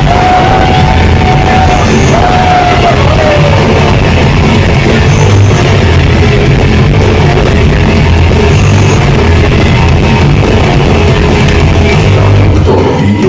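Loud live rock music from a full band with distorted guitars, with a held high note sliding down in the first few seconds.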